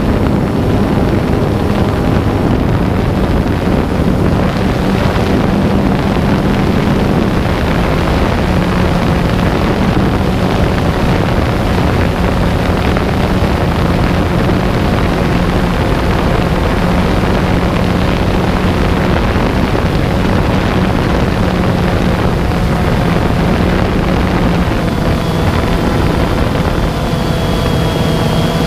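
DJI Phantom quadcopter's motors and propellers whining steadily over a rush of wind noise, heard from the camera carried on the drone. A few higher steady tones join in near the end.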